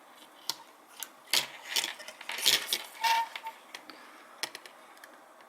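Small plastic and metal parts of a disassembled dashcam being handled, with a string of sharp clicks and light knocks and some rustling in between.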